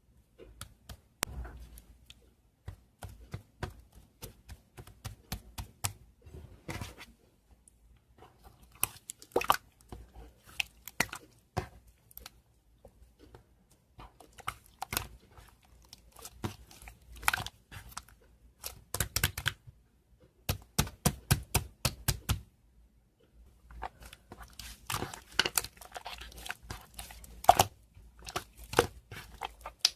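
Dry crackling and crinkling clicks, sharp and close together, coming in bursts with short pauses between them.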